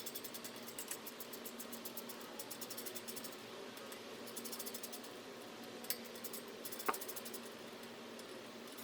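Hand ratchet clicking in quick runs while working the rotor bolts on a motorcycle wheel hub, with two sharp metal clinks late on, the second the loudest.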